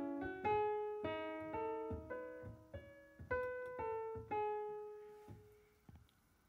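Background piano music: a slow melody of single struck notes, about two a second, each ringing and fading, dying away about five and a half seconds in.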